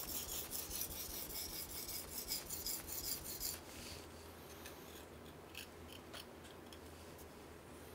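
A knife blade scraping in quick back-and-forth strokes across a wet Tsushima Nagura Japanese natural whetstone, grinding through its slurry while sharpening. The strokes stop about three and a half seconds in, leaving only a few faint ticks of handling.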